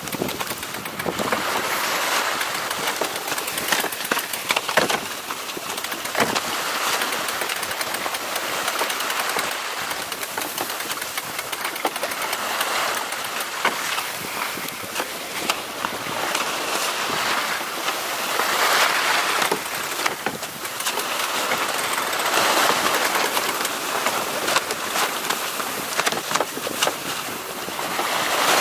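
Water rushing and splashing along the hull of a Grand Soleil 39 sailing yacht under way, swelling and easing every few seconds, mixed with wind noise on the microphone and scattered sharp ticks.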